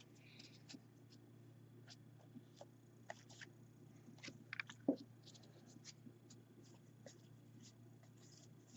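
Baseball trading cards being handled: faint, scattered clicks and brushes of card stock as the cards are sorted, the loudest a little under five seconds in.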